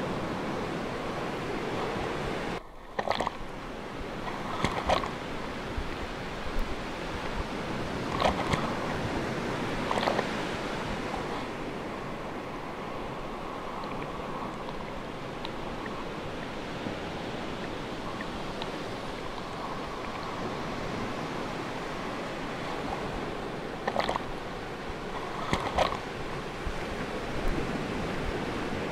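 Sea waves washing steadily, with a handful of brief sharp splashes of water.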